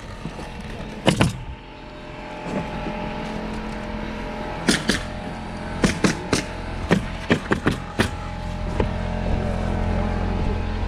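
Pneumatic roofing nailer firing as asphalt shingles are nailed down: a quick, irregular run of sharp cracks through the middle stretch, about two or three a second, over a steady low rumble.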